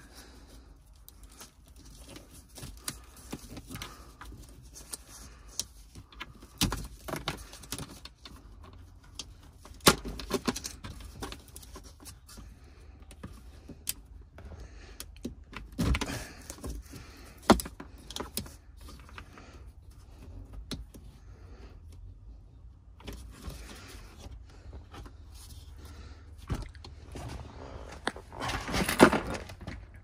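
Scattered plastic clicks, knocks and rattles of wiring connectors being unclipped from a Nissan Pathfinder's gear shifter assembly by hand, with a denser rattle near the end.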